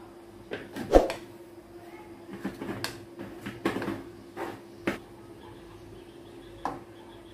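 Steel spoon stirring flour and water into a thick batter in a bowl: soft scraping with irregular clicks and knocks of the spoon against the bowl, the loudest about a second in. A faint steady hum runs underneath.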